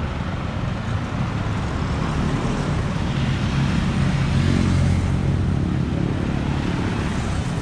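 Street traffic noise. A motor vehicle's engine passes close by, its low hum building to a peak about four to five seconds in and then fading.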